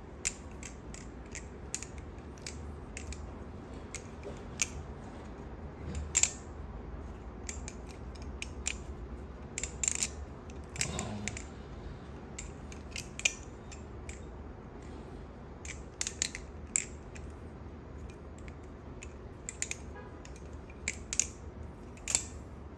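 Kraken clone balisong (butterfly knife) being flipped: irregular sharp metallic clicks and clacks as the handles swing round and strike the blade's tang pins, with short pauses between tricks.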